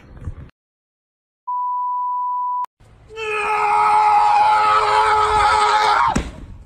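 A steady electronic beep for about a second, then a loud, steady wail holding several pitches at once for about three seconds, which cuts off abruptly.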